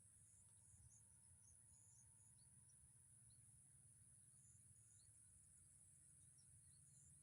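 Near silence outdoors: a faint, steady high-pitched insect chorus, with scattered brief bird chirps.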